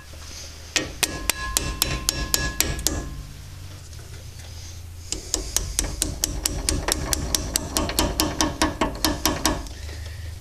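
Small hammer tapping a steel drift punch to seat the new pads' retaining pins in a VW Bus front disc brake caliper: a quick run of light metallic taps that ring, a pause of about two seconds, then a longer steady run of taps, about five a second.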